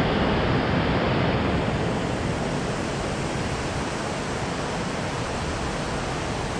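Steady rushing noise of flowing water, an even hiss with no breaks, easing slightly about two seconds in.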